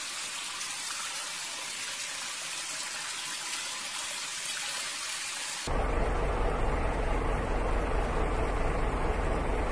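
Steady hiss of heavy rain and water on a wet street. About two-thirds of the way in it switches abruptly to a louder, low rumbling noise.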